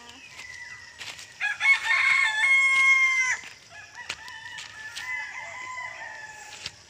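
Rooster crowing: one loud, held crow about a second and a half in, lasting about two seconds, followed by a fainter crow.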